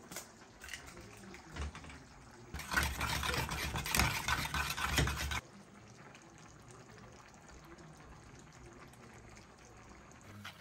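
Cooking sounds at a gas stove: a pan of tomato sauce with a loud spell of sizzling and stirring for about three seconds near the middle, which stops abruptly, then quieter as beaten egg is poured from an aluminium bowl into the sauce.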